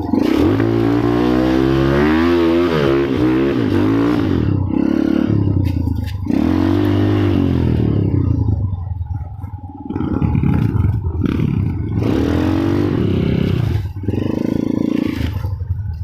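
Vehicle horn (klakson) sounding a series of long blasts that bend and waver up and down in pitch, with short breaks between them at about four and a half, six, nine and a half and fourteen seconds.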